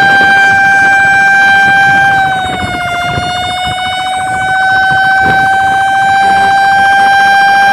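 Fire truck's emergency warning tone sounded continuously while responding, one steady high-pitched tone with a buzzing edge. About two seconds in it sags a little in pitch and loudness, then slowly climbs back.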